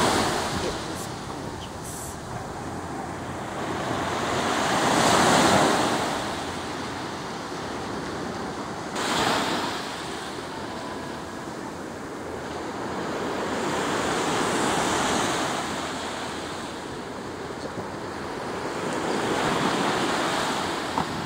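Ocean surf breaking on a beach, the rush of each wave swelling and fading every four to six seconds; one wave breaks more sharply about nine seconds in.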